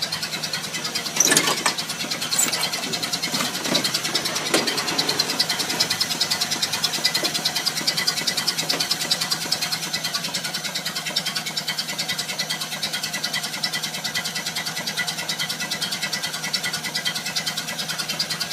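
Old car engine running at idle with a fast, even pulse, with a few sharp, louder noises in the first few seconds.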